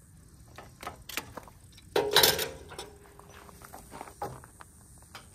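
Hydraulic hoses being fitted to the quick-connect couplers on a New Holland skid steer's auxiliary hydraulics: a string of short metallic clicks and knocks, with one louder, longer clatter about two seconds in.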